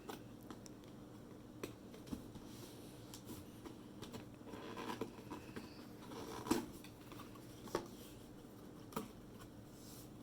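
Cardboard packaging being handled: soft rustling and a few scattered light clicks and taps, faint.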